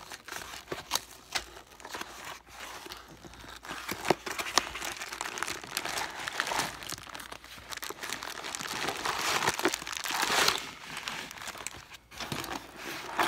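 Packing material in a cardboard box rustling and crinkling as it is handled and pulled aside, with scattered small clicks and knocks, growing louder near the end.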